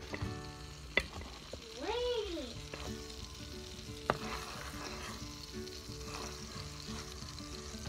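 Vegan butter sizzling as it melts in a nonstick pan while a wooden spoon stirs it, with two sharp taps of the spoon against the pan about one and four seconds in. A short pitched sound rises and falls about two seconds in.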